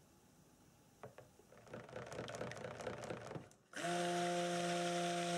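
Handheld stick blender mixing mica into cold process soap batter in a plastic jug, working it to a light trace. Irregular churning with clicks starts about a second in, then a little before four seconds it becomes a loud, steady motor hum.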